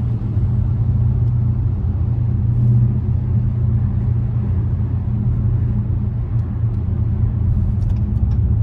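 2020 Dodge Scat Pack's 392 HEMI V8 running steadily with a low, even exhaust drone through a mid-muffler-delete exhaust.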